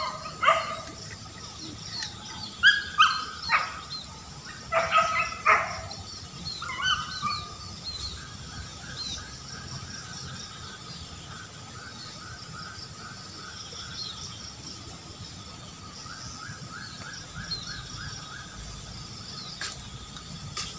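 A dog barking several times in the first six seconds or so. Afterwards, a fast run of repeated short chirps and a steady high insect buzz.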